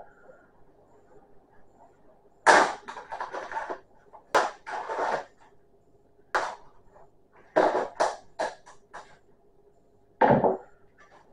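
Raw chicken thighs being put into a baking dish: a series of knocks and thuds, a few seconds apart at first and closer together later on, the first two followed by about a second of rustling handling.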